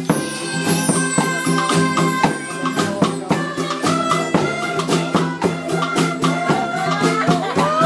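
Music with a steady beat of rattling hand percussion over sustained low notes; pitch-gliding melodic lines come in near the end.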